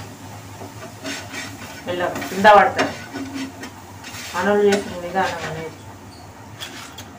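Spatula scraping under a dosa on a hot frying pan and lifting it off, over a light sizzle, with louder scrapes about two seconds in and again about four to five seconds in.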